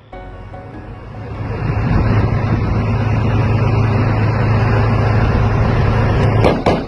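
A heavy armoured vehicle's engine running loud and close, building over the first two seconds and then holding a steady low drone. Two sharp bangs come near the end.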